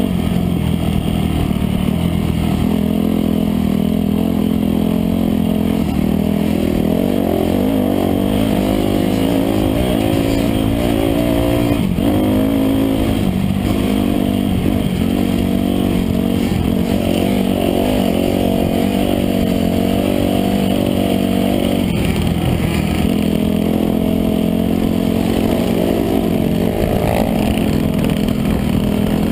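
Dirt bike engine running hard at riding speed, heard from on the bike, its revs rising and falling with the throttle.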